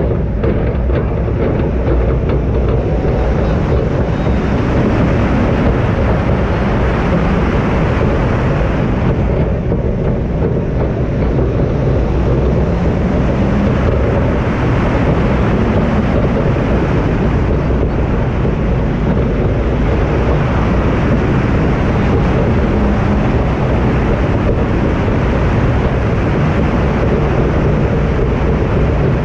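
Steady rush of wind on the microphone over the rumble of the Steel Dragon 2000 steel roller coaster train running along its track at speed.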